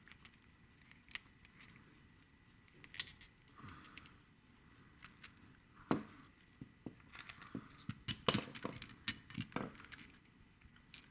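Small metallic clicks and clinks of a Reliabilt lock and metal tools being handled while the picked lock is taken apart, scattered at first and then a quick run of clinks about seven to ten seconds in.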